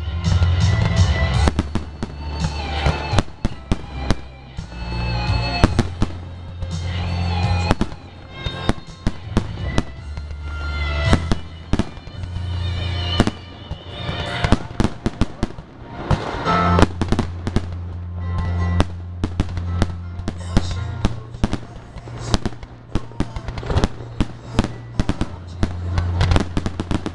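Fireworks display: aerial shells bursting in a rapid, irregular barrage of bangs and crackles, over music.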